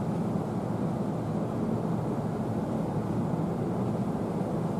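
Steady low rumble of an electric-locomotive-hauled E257 series train rolling away over the station tracks.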